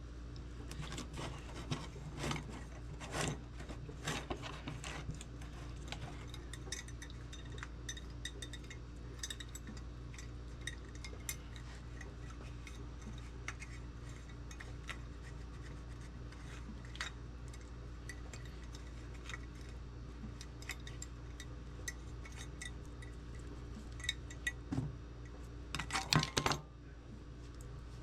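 Scattered light clinks, taps and rubbing from an old lantern being handled and cleaned, with a louder flurry of clatter near the end, over a steady low hum.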